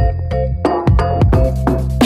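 Electronic background music with a steady drum beat, bass line and synth notes.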